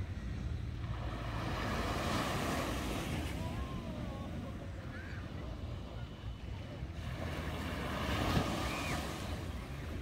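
Small waves breaking and washing up a sandy beach, the surf swelling about two seconds in and again around eight seconds, with wind rumbling on the microphone.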